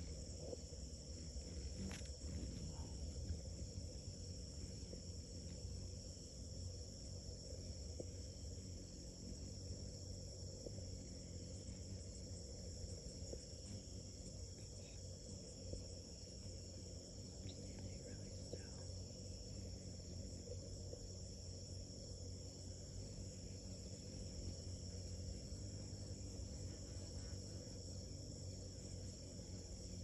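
Steady high-pitched insect chorus, unbroken throughout, over a low steady rumble.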